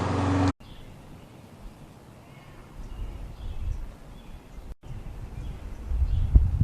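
Gasoline lawn mower engine running steadily, cut off abruptly about half a second in. After that only faint low rumbling, with a few low thumps near the end.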